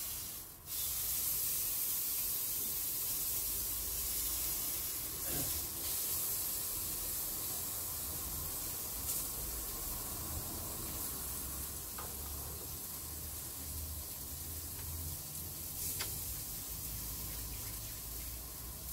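Meat and vegetables sizzling on an electric tabletop grill, a steady hiss with a few faint clicks.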